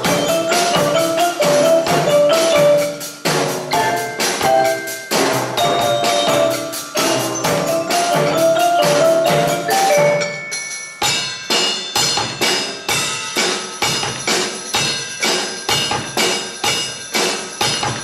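Percussion ensemble playing: marimbas carry a quick melody over drums and other struck percussion. About ten seconds in, the lower parts drop out, leaving brighter ringing mallet notes over an even beat.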